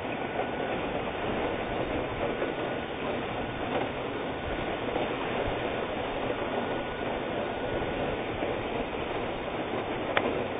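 Heavy hurricane rain and wind making a steady rushing noise, with a single faint click near the end.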